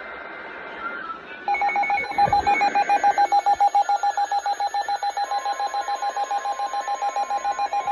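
NOAA Weather Radio alert sequence for a severe thunderstorm warning. It opens with the tail of a SAME digital header, short screechy two-tone data bursts. About a second and a half in, a loud electronic alert beep starts, pulsing about seven times a second, and about five seconds in a steady high warning alarm tone joins it.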